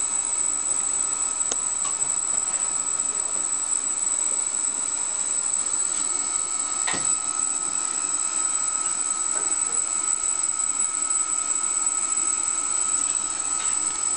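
Electric motor turning the bare crankshaft of an Elliott Bay triple expansion steam engine through a V-belt, running steadily with an even whine and a few faint clicks. The crankshaft is being run in its new main bearings.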